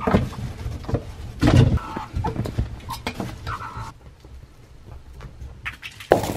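Two meerkats scuffling on a blanket: a few short, squeaky calls among rustling and soft thumps, with one louder thump about a second and a half in. The scuffle goes quieter about four seconds in.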